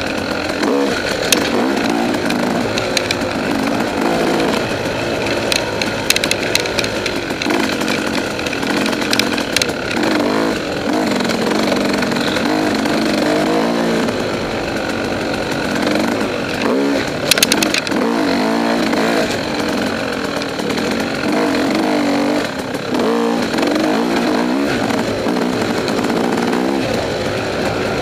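KTM 300 XC two-stroke single-cylinder dirt bike engine, heard from a camera mounted on the bike, revving up and falling back again and again with the throttle. Sharp clicks and knocks come through now and then, the loudest a little past halfway.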